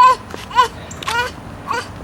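A toddler's short, high-pitched vocal sounds, repeated about every half second, four times.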